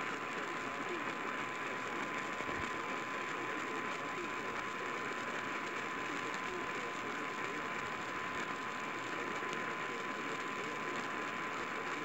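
Heavy AM radio static hiss from a weak station on 780 kHz, coming through a portable radio's speaker, with a steady high tone underneath: the Emergency Alert System attention signal that precedes the warning message.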